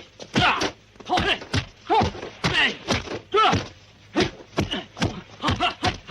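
Kung fu film fight sounds: fighters' short yells and grunts mixed with sharp punch and kick impacts, coming rapidly, several a second.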